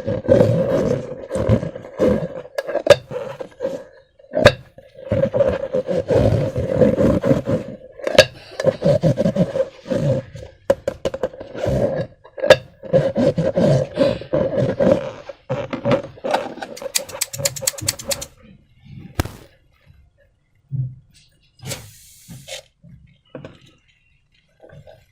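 Slime being squished and worked in rubber balloons: wet squelching and rubbery squeaks, with a buzzing drone in repeated bursts, and sharp clicks. After about 18 seconds it thins out to scattered quieter clicks and scrapes.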